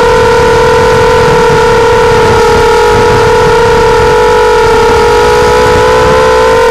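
A hexacopter's six MN1806 2300kV brushless motors and propellers in flight, a loud steady whine over a rough low rumble, the pitch rising slightly near the end as the throttle comes up.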